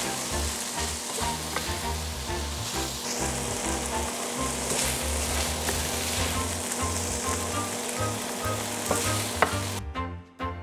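Stir-fry of minced pork, diced long beans and mushrooms sizzling in a hot frying pan while a metal spatula stirs it and scoops it out. Near the end the sizzle cuts off and background music takes over.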